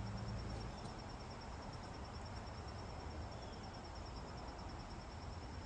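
A steady, high-pitched pulsing trill of an insect, over a faint low outdoor rumble.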